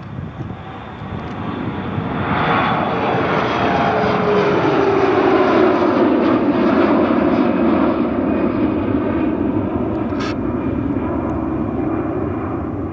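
Regional jet's twin turbofan engines at takeoff power on the departure roll. The roar builds over the first couple of seconds, a whine in it slides down in pitch as the jet goes past, and it then stays loud and slowly fades, with one brief click about ten seconds in.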